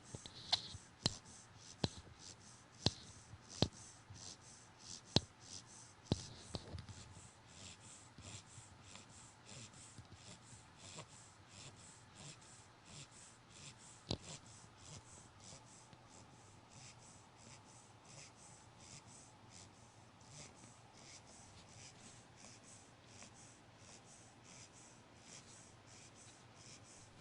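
Three-month-old Corgi puppy snoring in its sleep, a faint, rapid snuffling about two breaths a second, which the owner likens to a piglet's snoring. A few sharp clicks come in the first six seconds.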